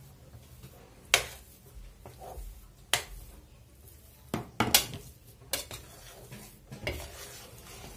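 Steel spoon stirring a thick roasted besan mixture in a stainless steel pan, scraping through the paste and clacking against the pan's side about six times.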